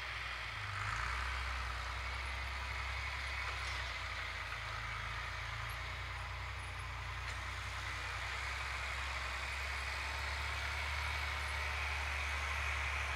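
Diesel farm tractor engine running steadily, a constant low drone with a hiss of higher noise over it.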